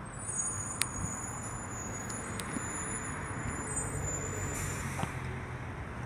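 Electric rubbish truck moving along the street, its drive giving a thin, steady high whine over a low hum and road noise; the whine cuts off about four and a half seconds in, followed by a short hiss of air.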